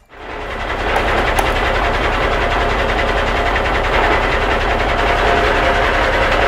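A small motor running steadily with a rapid mechanical rattle, starting abruptly.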